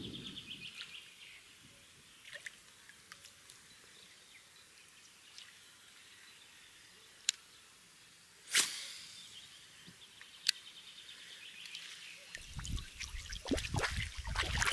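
Quiet lakeside fishing sounds: a faint rapid ticking comes twice, and three sharp clicks sound, the middle one loudest. Low rumbling and knocks set in near the end and grow louder.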